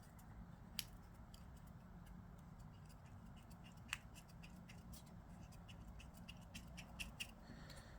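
Faint clicks and light taps of small 3D-printed knife parts being handled and fitted together, with two sharper clicks about a second in and near four seconds.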